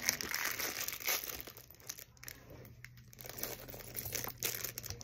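Small plastic packet crinkling as it is handled and torn open, with many small crackles, busiest in the first couple of seconds and then softer rustling.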